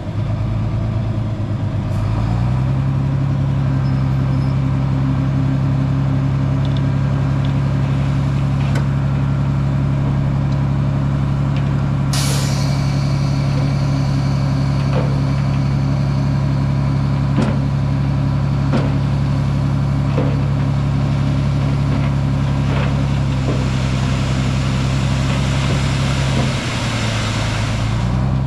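A heavy truck's diesel engine speeds up and holds at a steady high speed for over twenty seconds, then drops back near the end. About halfway through, a sharp hiss of released air starts suddenly and fades.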